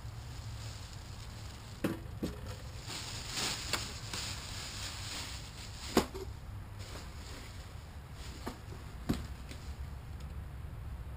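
Items from an engine's shipping box being handled: several sharp knocks and clacks, the loudest about six seconds in, with a short stretch of rustling early on.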